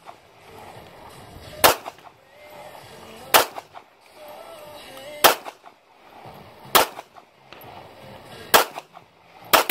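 .380 semi-automatic pistol fired six times, slow aimed shots about one and a half to two seconds apart.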